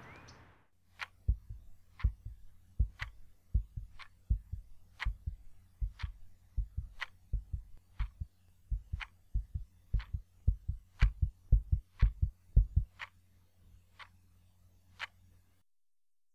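A clock ticking once a second over a low, doubled heartbeat thump. The heartbeat grows quicker and louder, then stops about thirteen seconds in, while the ticking carries on a little longer over a low hum.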